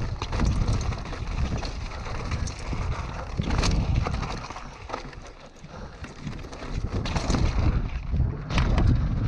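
Mountain bike riding fast down a rocky dirt trail: a steady rumble of wind on the camera microphone and tyres rolling over loose rock, broken by sharp knocks and rattles as the bike hits stones. It eases off briefly just past the middle, then builds again.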